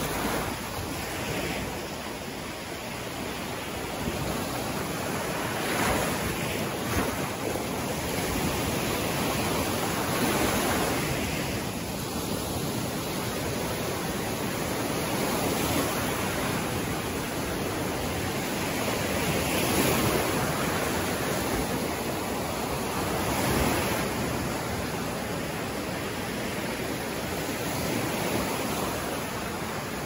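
Small ocean waves breaking and washing up a sandy beach: a steady surf hiss that swells every few seconds as each wave breaks.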